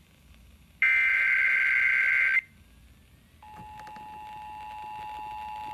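Emergency Alert System tones: a loud digital header data burst lasting about a second and a half, then a short pause and a steady alert tone that starts a little past halfway.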